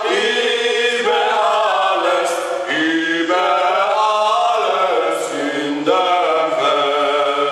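Several voices singing together in long held notes that step up and down in pitch, like a small choir.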